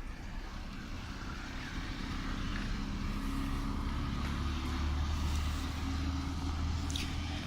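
A motor vehicle passing, its low engine hum swelling to its loudest about five seconds in and then easing off.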